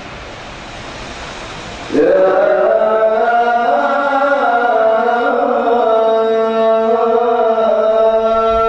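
A man's solo melodic Arabic religious chanting, sung into a handheld microphone. After about two seconds of steady hiss he launches into one long phrase of drawn-out, slowly bending held notes.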